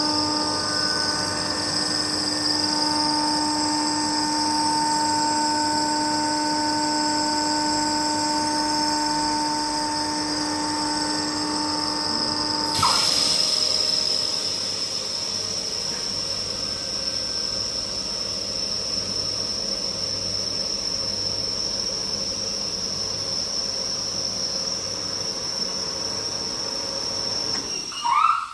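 Kaeser SX 6 rotary screw air compressor running with a steady hum and whine. About halfway through, a sudden burst of hiss cuts in, the lower running tones stop and the machine runs on more quietly, which fits the compressor unloading at its set pressure. Just before the end there is a brief rising squeal and the sound cuts off.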